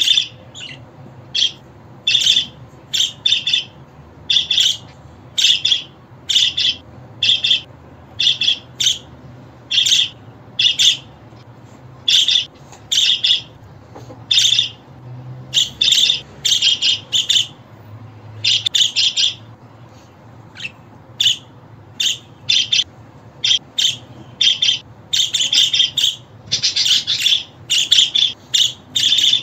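Budgerigar chirping and chattering in short, rapid calls that come in quick clusters separated by brief pauses.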